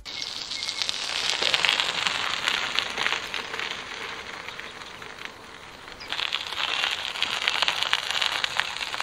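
Bicycle tyres rolling over a gravel path, a fine crackling hiss. It eases a little about halfway through and comes back louder as the loaded touring bike passes close by.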